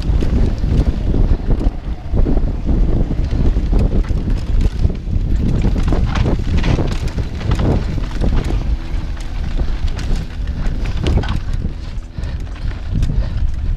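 Mountain bike riding fast down rough dirt singletrack: tyres rumbling over the dirt and the bike rattling and knocking over bumps and ruts, with wind buffeting the bike-mounted camera microphone.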